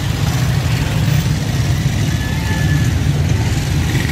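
Busy market street noise with motorcycle engines running in the crowd, a steady low rumble with a few faint short tones in it.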